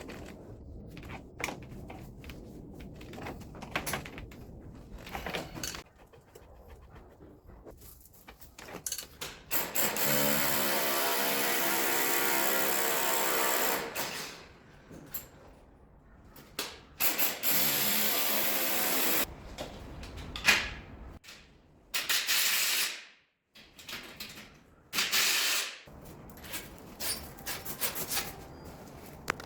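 A power tool running in several bursts, the longest lasting about four seconds, among clicks and knocks of tools and parts being handled during an air-conditioner installation.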